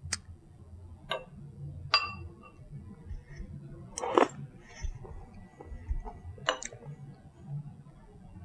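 A metal spoon clinks lightly against a ceramic bowl of dashi a few times, with one brief click again near the end. About four seconds in there is a short slurp as the poached matsutake slice is taken off the spoon, followed by quiet chewing.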